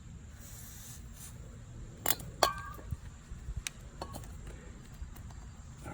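Small parts handled on a workbench during carburettor-cleaning work: a short faint hiss near the start, then a couple of sharp clinks with a brief ring about two seconds in, followed by a few lighter taps.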